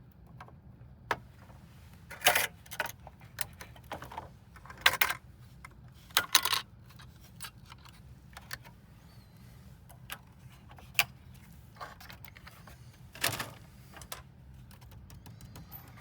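Scattered metallic clicks and clinks of small computer hardware being handled, about a dozen irregular knocks with the loudest a little after two, five, six and thirteen seconds in, as a processor is moved from one motherboard to another.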